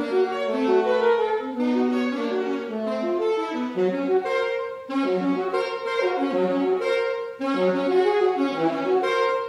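Two saxophones playing a duet of short, repeated notes, the two parts clashing a major second apart so that they sound like car horns in traffic. The room is reverberant, and both play loud throughout.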